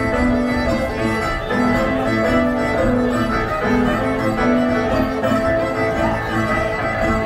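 Live contra dance band playing a dance tune with a steady beat.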